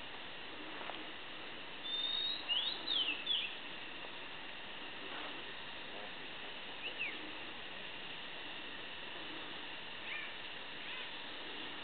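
Bird calls: a quick run of sharp whistled sweeps about two seconds in, two short downward notes around seven seconds, and a few faint calls near the end, over a steady background hiss.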